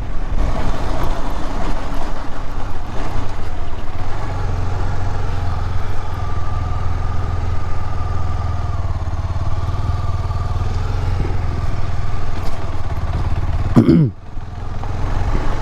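KTM 250 Adventure motorcycle's single-cylinder engine running steadily under way, with a short dip in the engine sound near the end.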